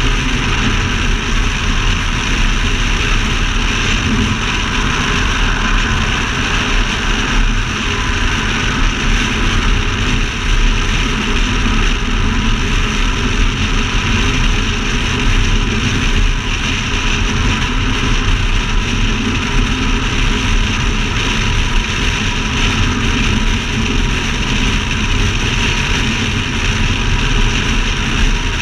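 Steady highway cruising noise from a camera mounted on the outside of a C6 Corvette Grand Sport: wind rushing over the microphone, tyre roar and the low drone of the car's 6.2-litre V8 at a constant speed.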